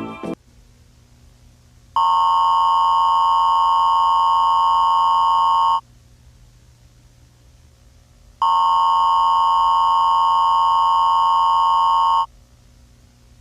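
Emergency-broadcast style alert tone sounding twice, each a loud, steady electronic beep of about four seconds. Between and around the tones there is a low electrical hum.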